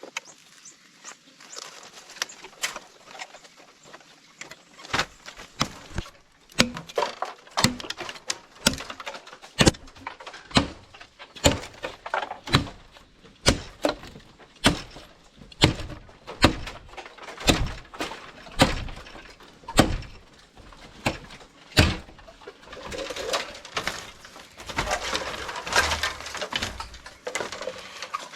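Repeated heavy blows of a hand tool striking, sparse at first, then settling into about one or two strikes a second from about five seconds in, with a stretch of rustling, scraping noise near the end.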